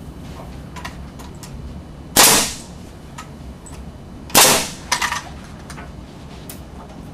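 Pneumatic framing nailer firing twice, about two seconds apart, driving collated nails through the timber plate into the studs; each shot is a sudden loud bang. A few lighter knocks from handling the tool follow the second shot.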